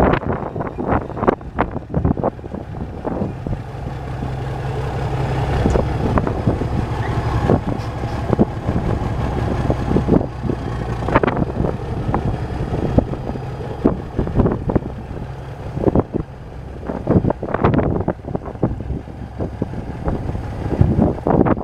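The Cummins 855 inline-six diesel of a 1980 International TransStar II cab-over grain truck idling steadily. Its low rumble is stronger for several seconds in the middle. Irregular short scuffing noises lie over it.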